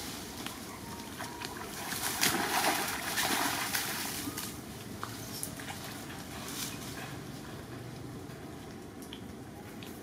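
Muddy rainwater runoff splashing and trickling over the ground, louder for a couple of seconds about two seconds in, with scattered small clicks.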